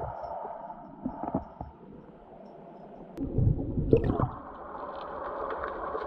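Muffled underwater sound: a steady hiss with low, gurgling rumbles of moving water, the loudest lasting about a second from roughly three seconds in.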